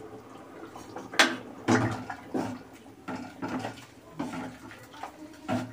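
A metal ladle stirring fried cauliflower into a watery pot of rice and mung dal in an aluminium pot: one sharp clink about a second in, then a run of short sloshing strokes.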